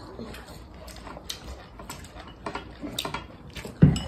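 Light, scattered clicks of chopsticks and tableware against bowls and plates during a meal, with one dull thump near the end.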